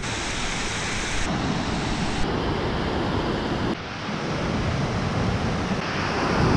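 Alpine mountain stream rushing over rocks: a steady noise of fast-flowing white water. Its level and tone shift abruptly several times.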